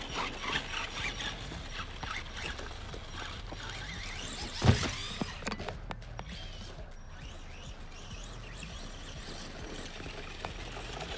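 Arrma Granite Voltage 1/10 RC monster truck's brushed 540 motor and drivetrain whirring as it drives over grass, with one sudden loud thump near the middle.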